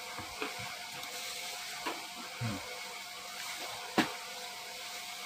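Crisp fried glutinous-rice sticks being picked up and handled: a few soft knocks and one sharp click about four seconds in, over a steady faint background hum.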